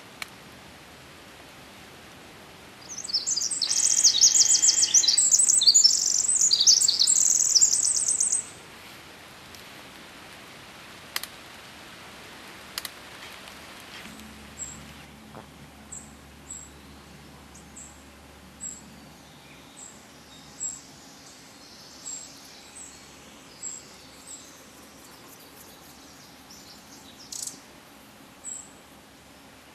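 Pacific wren (the western winter wren) singing one long, rapid song of high tumbling trills, lasting about five seconds. Later, short high chip notes repeat about once a second.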